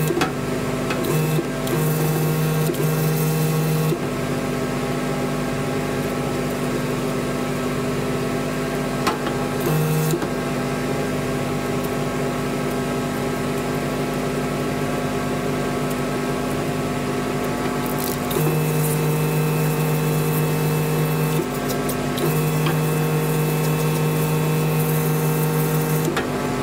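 Steady electric hum of a mobile grooming van's equipment. A water pump's deeper drone cuts in while the bath sprayer is running and cuts out when it stops, several times: off through the long middle stretch, back on for the last several seconds.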